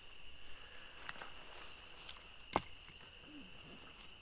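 Knife blade working birch shavings and wood curls for a fire lay: faint scrapes and clicks, with one sharp click about two and a half seconds in. A steady high thin trill runs underneath.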